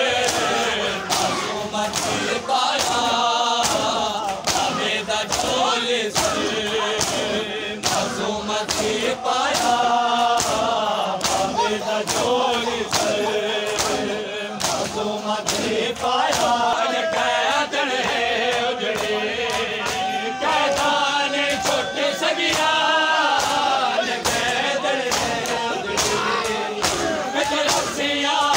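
Crowd of men chanting a nauha (mourning lament) together while beating their chests in matam. Sharp hand slaps on bare chests fall in a steady rhythm under the singing.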